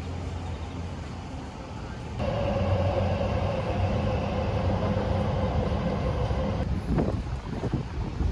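Steady city traffic rumble. About two seconds in it switches to a louder, even mechanical hum with a steady held tone, which cuts off abruptly near the end.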